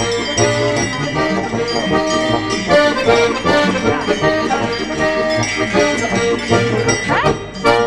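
Accordion music in a traditional folk style.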